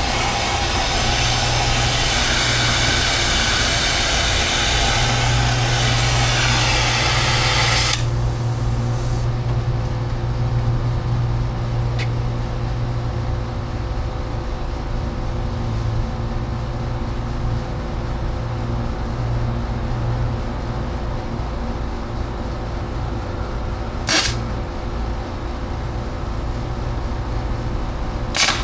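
Soldering torch flame hissing steadily, then shut off suddenly about eight seconds in. A steady low hum carries on beneath it, with a few sharp clicks later on.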